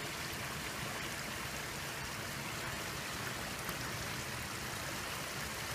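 Creek water running steadily through a beaver dam of sticks and mud, an even rushing trickle.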